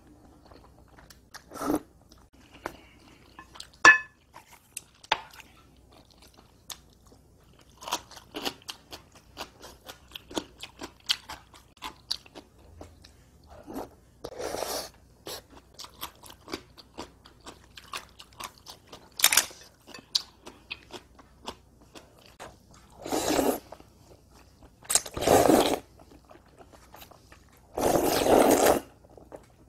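Close-up eating sounds: cream-sauce spaghetti noodles being chewed with wet mouth clicks and lip smacks, and several loud slurps of noodles in the second half. There is a single sharp clink about four seconds in.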